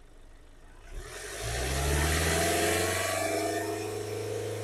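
Common-rail diesel engine revved up from idle about a second in and held at around 3000 rpm, then slowly easing. This is the third of three revs in an injector back-leak test.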